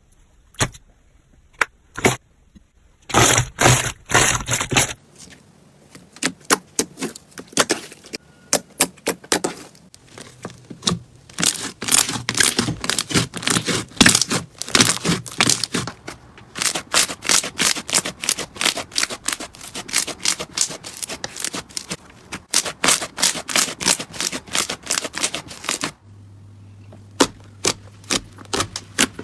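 Slime being squeezed, pressed and poked by hand, giving rapid crackling and popping clicks. The sound changes character a few times as one slime clip gives way to the next.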